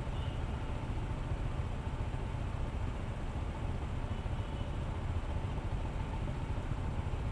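Steady riding noise from a Honda ADV160 scooter: a constant rush of wind and road rumble over its single-cylinder engine at an even pace.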